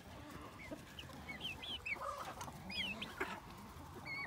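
Chickens in a free-range flock with young chicks, faintly clucking and peeping, with a run of short high peeps that bend up and down in pitch from about a second in.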